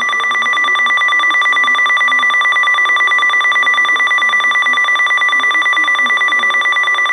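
Emergency alert attention tone: a loud, steady electronic alarm of several high pitches held without a break, with a rapid flutter, sounding ahead of a National Weather Service severe thunderstorm warning.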